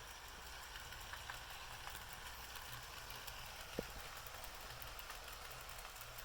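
Bachmann Spectrum GP-30 and GP-35 model diesel locomotives running on track: a faint low steady hum with scattered light clicks, and one sharper click a little after halfway.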